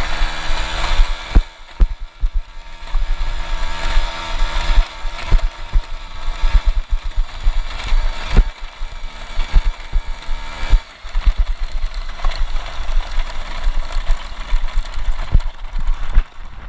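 Piaggio Ciao moped's Polini-tuned two-stroke engine running under varying throttle, easing off briefly about 2 s and 11 s in. Frequent knocks and rattles from the bike jolting over rough, bumpy ground.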